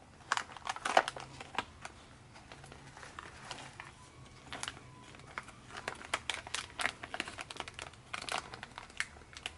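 Packaging being handled as a small cardboard electronics-kit box is opened: irregular crinkling and crackling, in clusters about a second in and again through the second half.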